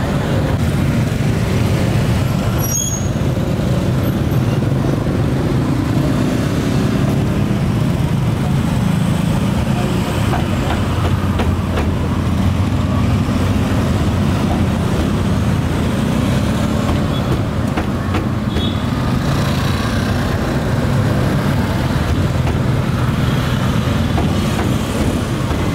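Steady low engine rumble of motor vehicles running close by in street traffic, with occasional faint knocks of a cleaver chopping on a wooden block.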